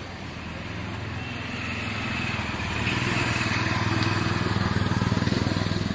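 An engine running steadily, growing louder over the first few seconds, then cutting off suddenly near the end.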